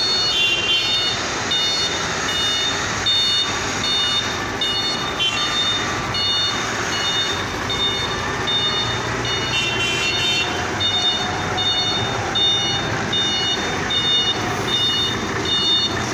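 Vehicle reversing alarm beeping steadily, a little under two high beeps a second, over the running of heavy vehicles.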